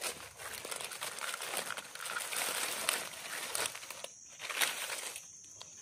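Dry leaf litter and twigs rustling and crackling as they are handled, with many small irregular crackles.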